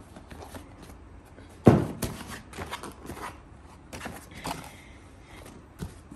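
Cardboard boxes being handled: a sharp knock about 1.7 s in as one box is set down, then cardboard scraping and rustling, with a few lighter knocks.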